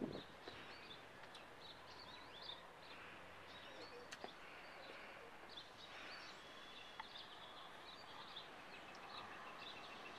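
Quiet outdoor background with faint, scattered bird chirps.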